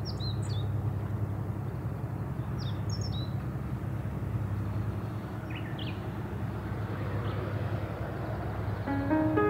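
Steady low rush of a calm sea and breeze at the shore, with a small bird giving a few short, quick chirps, three times. Gentle music with held notes comes in near the end.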